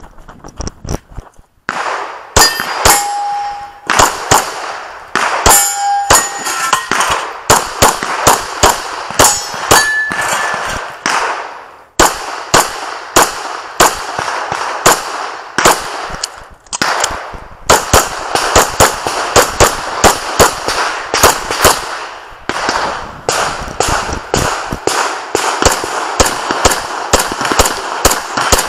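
Semi-automatic pistol firing rapidly through a practical-shooting course of fire, many shots in quick strings with short pauses near 12 and 17 seconds. Steel targets clang and ring briefly when hit.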